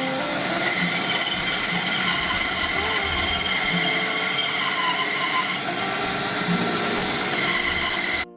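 Bandsaw running and rough-cutting a wooden guitar-neck blank: a steady machine noise with several high held tones from the blade. It cuts off suddenly near the end.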